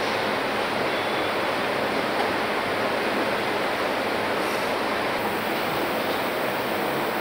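Steady, even hiss of car-assembly-hall background noise, like rushing air, with no distinct tool or machine strokes standing out.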